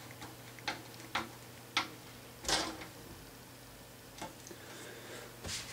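A small precision screwdriver turning a tiny screw into a plastic scale-model frame, giving a handful of sharp, irregular clicks and ticks. The loudest comes about halfway through.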